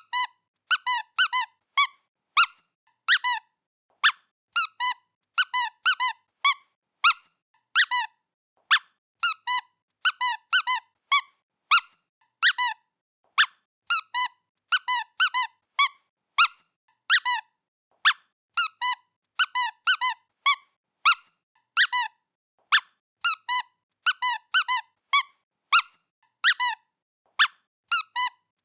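Squeaky pet toy being squeezed over and over: short, high squeaks, often two in quick succession, at an irregular pace of one to three a second.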